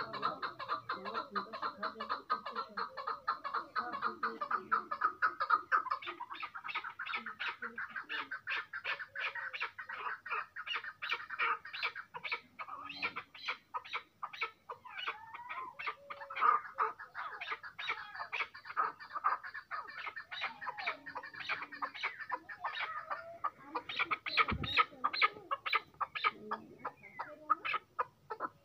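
Chukar partridge calling: a long, unbroken run of rapid, repeated clucking notes, about four or five a second, with a few higher gliding notes mixed in.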